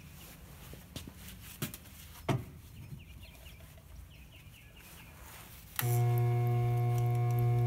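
A few light knocks as a steel axe head is handled. Then, about six seconds in, the grinder's 130-volt DC treadmill motor, run through an AC-to-DC speed controller, comes on suddenly with a loud, steady electric hum.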